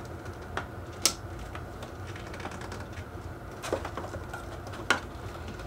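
A handful of small, sharp plastic clicks and taps, scattered, from handling a Hot Toys action figure and its swap-out hands.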